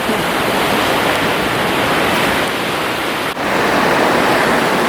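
Sea surf washing onto a beach, a steady loud rush of breaking waves.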